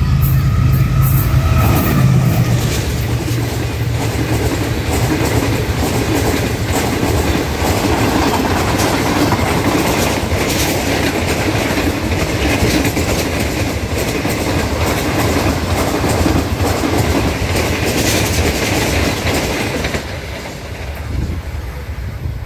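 Diesel-hauled Green Line Express passenger train passing through a station without stopping. The locomotive's diesel engine sounds loudly in the first couple of seconds, then a long line of coaches goes by with wheels clattering over the rail joints. The sound drops off near the end as the last coach passes.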